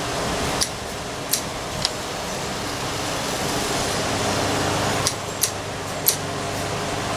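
Several light, sharp clicks of small plastic throttle-housing parts and screws being handled and fitted, over a steady whirring background like a shop fan.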